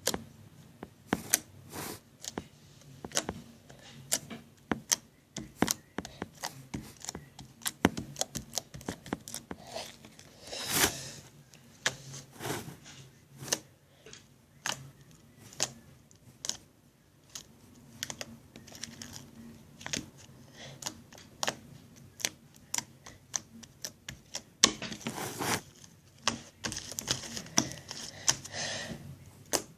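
Slime being squished and worked by hand, making many irregular wet clicks and pops. A louder squelch comes about eleven seconds in, and a longer run of squelching near the end.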